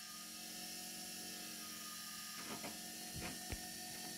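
Faint, steady electrical hum with several steady tones from an AC motor being driven by a homemade three-phase IGBT inverter off a 120 V DC bus, with a few faint ticks about midway.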